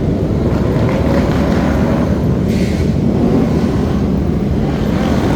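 Motorcycle engines running loud and steady.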